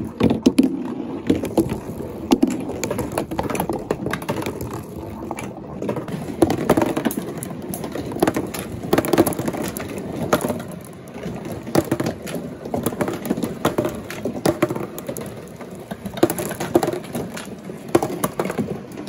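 Glass marbles rolling down a cardboard marble run: a steady rumble with frequent small clicks and knocks.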